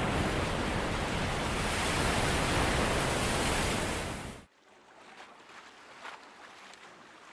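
Ocean surf breaking, a steady rushing wash that fades out and stops about four and a half seconds in. After that only faint, soft washes of small waves remain.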